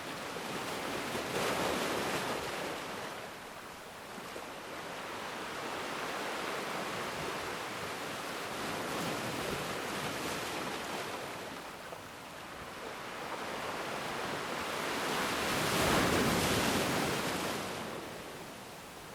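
Ocean waves breaking on a shore, a steady wash of surf that swells and ebbs, with a bigger wave cresting about a second and a half in and the largest near the end.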